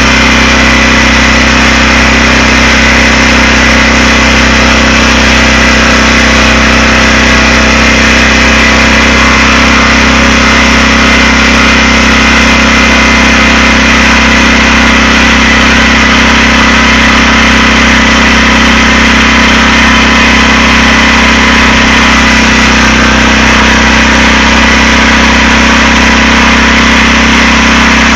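Sawmill's engine running steadily at a constant speed, loud and unchanging in pitch.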